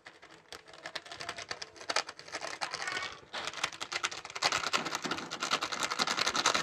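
A small printed plastic sachet being crinkled and torn open by hand over a mixer bowl, a dense run of fast crackles that gets busier about halfway through.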